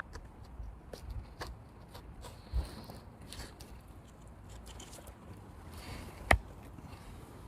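Small handling noises: scattered light clicks and rustles, a soft thud about two and a half seconds in, and one sharp click about six seconds in.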